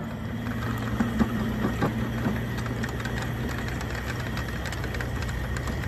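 Small engine running steadily as a train of miniature ride-on freight wagons rolls by, with a few knocks early and light, regular clicking of wheels on the rails.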